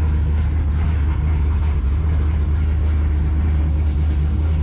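Twin-turbo LS V8 idling steadily just after its first start on ethanol. The idle is too high, which the tuner means to fix by readjusting the throttle body.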